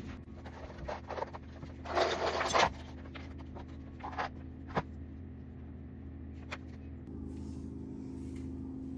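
Objects being handled: a short scrape about two seconds in and a few light knocks, over a steady low hum.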